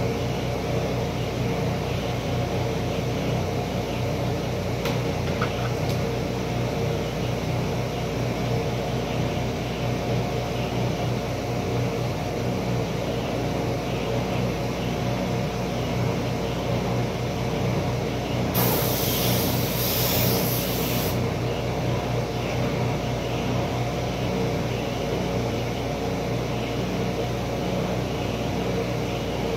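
Table saw motor running with a steady hum. About two-thirds of the way through, a sharp hiss lasts for about two and a half seconds.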